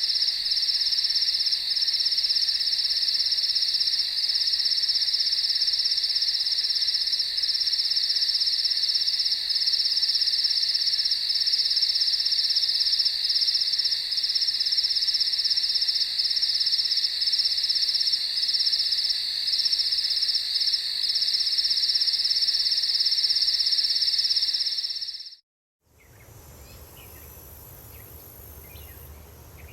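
Dense, steady chorus of crickets trilling, which fades out near the end. After a short silence a quieter country ambience comes in, with a low distant rumble and faint bird chirps.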